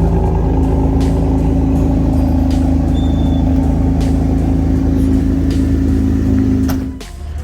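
Mercedes-Benz car engine idling after a cold start, a steady hum that drops off suddenly about seven seconds in.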